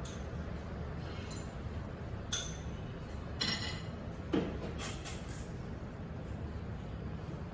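Metal cutlery clinking against a ceramic bowl and plate: a handful of separate light clinks, the loudest about four and a half seconds in, over a steady low room hum.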